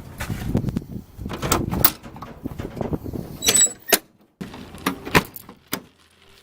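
Irregular knocks and clunks over a low rumble.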